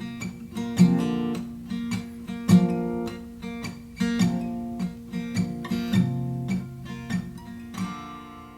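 Acoustic guitar playing the closing bars of a hymn accompaniment, picked notes and strummed chords, the last chord left ringing and fading away near the end.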